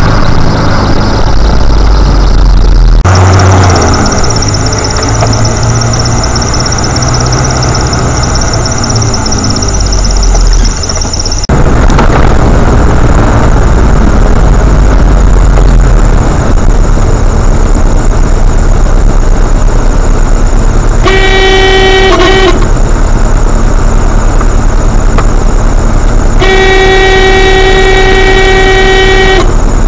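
Car horn sounding two single-note blasts, a short one of about a second and a half about two-thirds of the way in and a longer one of about three seconds near the end, over steady car engine and road noise.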